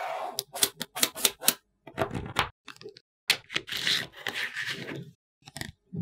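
Small magnetic metal balls clicking and rattling as strips of them snap together into a sheet, with a duller thump about two seconds in.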